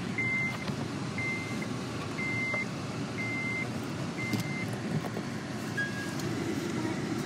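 A car's warning chime beeping five times, evenly about once a second, then stopping. Under it runs the steady low rumble of the car's cabin on the road.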